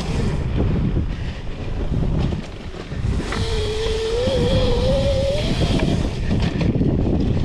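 Electric dirt bike being ridden, with wind buffeting the microphone. About three seconds in, the bike's 11,000-watt brushless motor whines, wavering and rising in pitch for a couple of seconds before it drops away.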